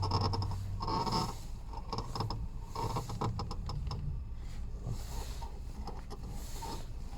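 Hyundai Solaris steering creaking as the steering wheel is turned: repeated short squeaks with a dry, clicky creak between them.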